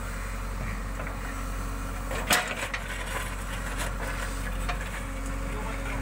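JCB 3DX backhoe loader's diesel engine running steadily as the backhoe arm digs, with one sharp knock a little over two seconds in.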